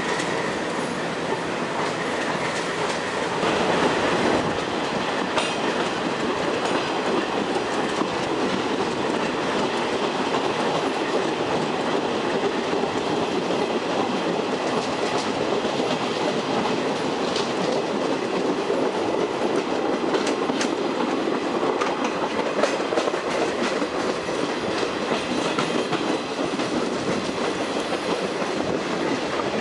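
Stainless-steel Budd-Mafersa passenger car rolling along the track, heard from an open window. The wheels on the rails make a steady rush, with a few sharp clicks scattered through it.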